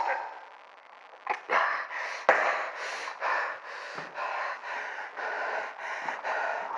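A person panting hard into the microphone, about three quick rasping breaths a second, with a couple of sharp knocks early on.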